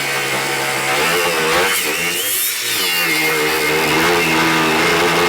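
DeWALT DCG413B 20V brushless cordless angle grinder running under load with a cutoff wheel. Its pitch wavers and rises briefly about two and a half seconds in, then settles back to a steady pitch.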